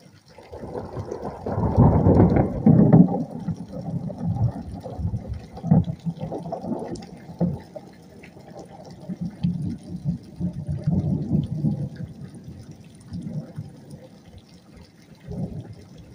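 Storm wind gusting over the microphone: a low buffeting noise that swells and eases in waves, strongest about two to three seconds in.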